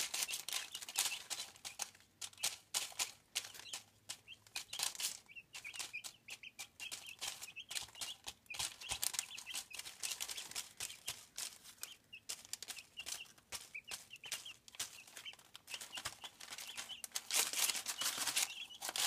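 Young chicks pecking at watermelon on newspaper, a busy run of quick taps and paper rustles, with many short, soft peeps throughout. It gets busier near the end.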